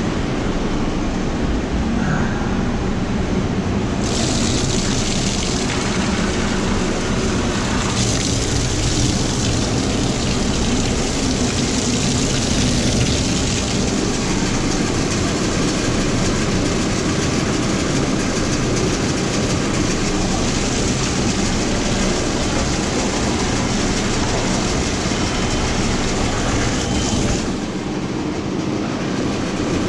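Electric drum-type drain-cleaning machine running steadily, its motor humming as the cable turns in a grease-clogged floor drain line. A steady hiss joins from about four seconds in and drops away near the end.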